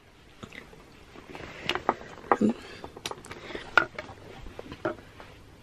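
Clothes rustling and a handful of sharp knocks and clicks as a person gets up from her seat and moves about a small room to switch off a room light.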